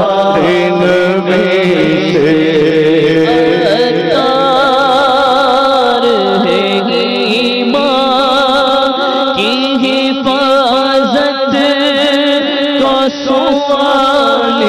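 Naat being sung: a solo voice holding long, wavering melismatic notes with heavy vibrato over a steady low drone.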